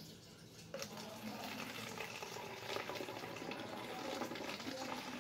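Water pouring from a plastic cup into the narrow neck of a plastic bottle, starting about a second in and running steadily as the bottle fills.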